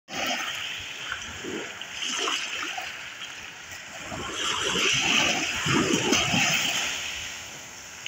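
Small sea waves lapping and splashing close to the water's surface, in irregular washes that grow louder around the middle and ease off near the end.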